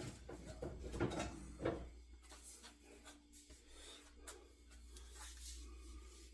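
Light knocks and rubbing of a wooden axe handle being picked up and handled, clustered in the first two seconds, then quieter handling.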